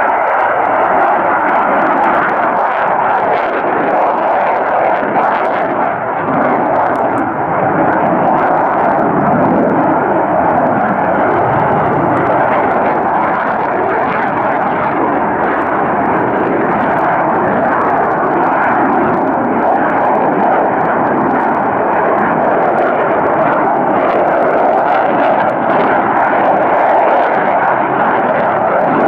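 Jet engine of a Dassault Mirage F1 fighter in flight, a loud, steady jet noise that never lets up. A deeper rumble swells briefly about ten seconds in.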